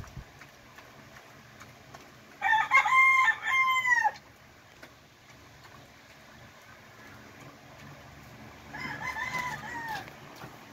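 A rooster crowing, a loud crow about two and a half seconds in ending on a long drawn-out note, followed near the end by a second, fainter crow.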